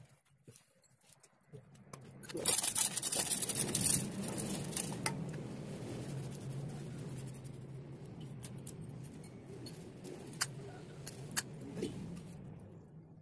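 Honda Vario 125 scooter engine coming up with a loud burst about two seconds in, then running steadily with a low hum. A few sharp clicks come near the end. This is the rough, growling ('ngorok') running that the scooter is being checked for.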